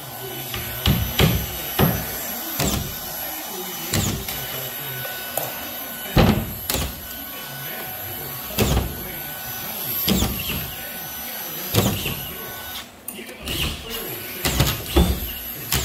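Hammer blows driving nails into drywall overhead: sharp knocks at irregular intervals, some in quick pairs, over a steady hum.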